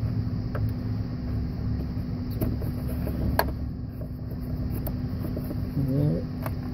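A few sharp metallic clicks as a worm-drive hose clamp is worked loose on a coolant hose, the loudest about three and a half seconds in, over a steady low rumble with a faint hum.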